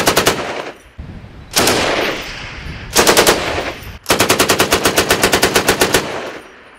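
7.62mm M60 general-purpose machine gun fired from the hip in four bursts of automatic fire, each followed by an echo off the hills. The last and longest burst runs about two seconds at roughly ten rounds a second.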